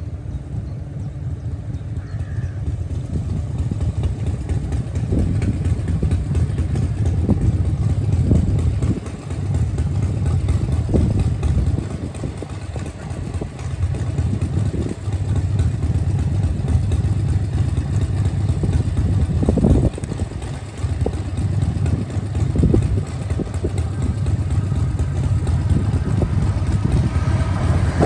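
Wind buffeting the phone's microphone as a low rumble that gusts up and down, with a few short thumps. Right at the end, the sound of an electric multiple-unit train reaching the crossing cuts in.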